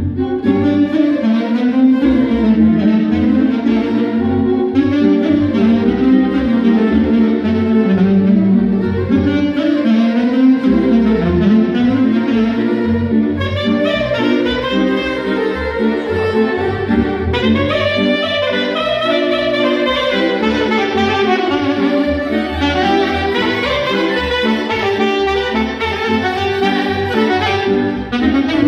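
Saxophone playing a quick-moving melody over a rhythmic low bass accompaniment.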